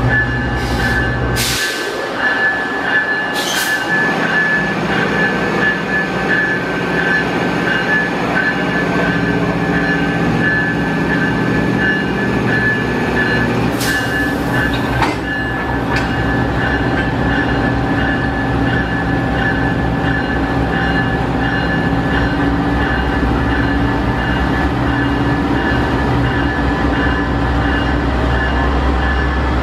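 GE P42DC diesel locomotive idling with a steady drone and a high steady whine over it. There are brief hisses of compressed air about a second and a half in, near four seconds, and about midway.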